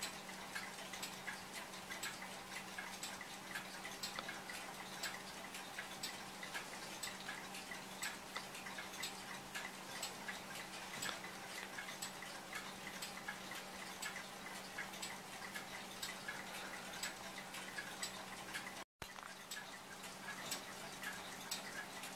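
Mechanical clock ticking steadily, with a faint steady hum underneath.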